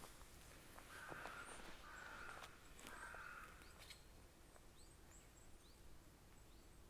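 A crow cawing three times, harsh calls of about half a second each roughly a second apart, followed by a few faint high chirps from small birds.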